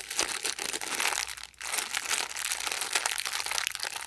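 Packaging crinkling and crackling as it is handled and rummaged through, in dense crackles with a short break about one and a half seconds in.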